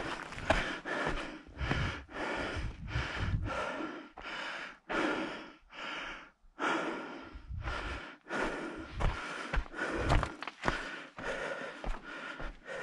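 A hiker breathing hard in quick, rushing breaths, about two a second.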